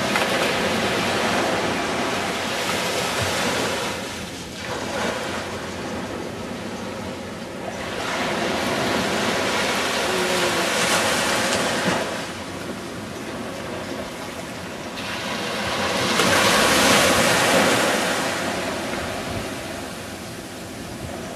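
Small waves breaking and washing up a sandy beach. The surf rises and falls in slow swells every few seconds, with the loudest swell about three-quarters of the way through.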